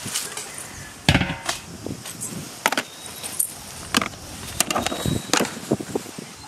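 Steel trays and plates clinking and clanking as they are handled and set down: a string of sharp metallic knocks, the loudest with a brief ring about a second in.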